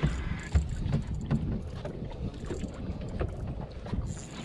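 Wind buffeting the microphone on a small boat at sea, an uneven low rumble, with scattered light clicks and knocks.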